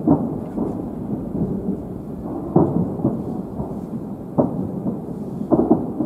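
Distant aerial firework shells bursting: a continuous rumble of booms, with several sharper bangs standing out.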